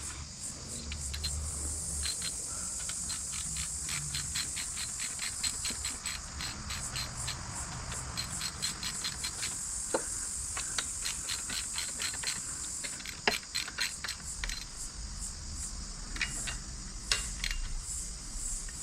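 Socket ratchet clicking in quick, even runs as the fender's mounting bolts are done up, with a couple of single knocks from the tool on the metal. A steady high hiss runs underneath.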